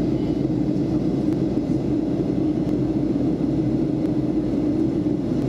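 Steady cabin noise of a Boeing 737-400 on approach: its CFM56 engines and the airflow heard from inside the passenger cabin, an even low drone with a steady hum.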